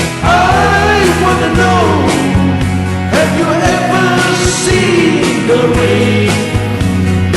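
Rock band music: a steady bass and drum beat under a sliding lead melody.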